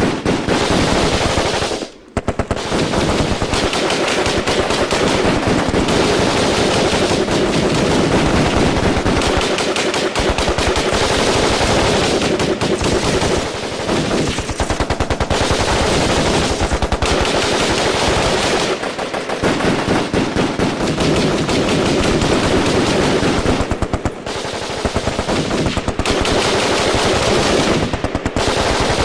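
Firefight: sustained automatic gunfire, shots overlapping almost without a break, with brief lulls about two seconds in and again near the middle.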